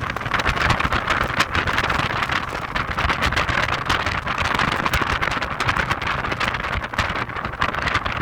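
Heavy wind buffeting on the microphone of a moving Audi TT 225 Quattro roadster: a constant crackling rush, with the car's road and running noise underneath.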